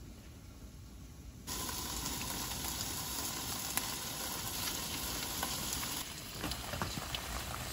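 Food sizzling in an aluminium mess tin over a small gas canister stove. It gets louder about a second and a half in. Near the end it gives way to rain pattering and dripping on a wooden deck.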